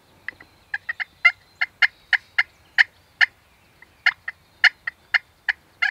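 A run of short, sharp turkey clucks, about three a second, irregular in loudness, with a brief pause a little past the middle.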